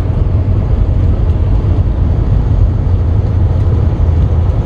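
Inside a semi truck's cab at highway speed: a steady, loud low rumble of engine and road noise, with a constant hiss of tyres and wind over it.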